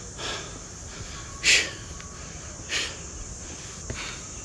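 A hiker breathing hard close to the phone's microphone: four short puffs of breath a little over a second apart, the second the loudest.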